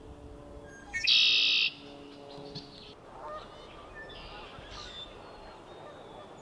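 Male red-winged blackbird singing once: a loud buzzy trill about a second in, lasting under a second. Fainter high bird calls follow a few seconds later.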